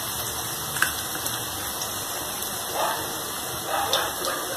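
Onion pakora batter deep-frying in hot mustard oil in a kadhai: a steady sizzle, with a brief click about a second in and a couple of short louder spurts near the end.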